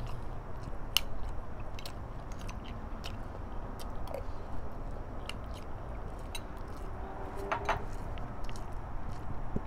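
Close-up eating sounds: a person chewing a mouthful of rice and pork, with light clicks of a spoon against a bowl scattered throughout.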